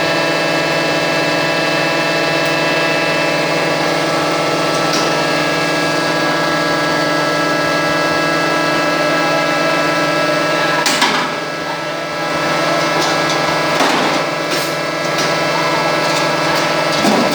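Rotary veneer-peeling lathe in a plywood mill running with a loud, steady hum of many tones. A few sharp knocks and clatters cut in during the second half, the first about eleven seconds in.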